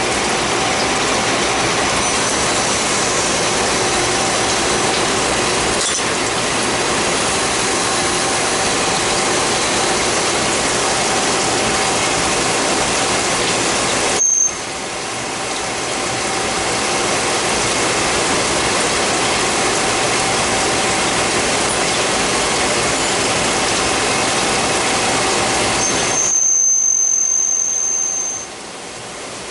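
CNC Swiss-type lathe running and machining parts: a loud, steady machine noise with faint steady whines. It drops off suddenly about 14 seconds in and then builds back up, and turns quieter about 26 seconds in, as a brief high whine sounds.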